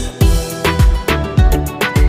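Background music with a steady beat: deep kick-drum hits whose bass tone falls with each hit, with hi-hat ticks and held notes above.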